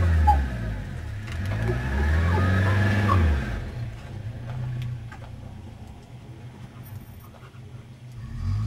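Toyota Hiace van's engine revving as it drives in deep snow: one swell of revs in the first few seconds, then it falls away to quieter running for several seconds and picks up again near the end.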